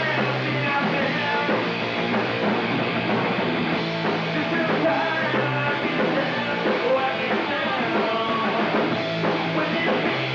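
A three-piece rock band playing live: electric guitar, electric bass and drum kit, in a steady, continuous song.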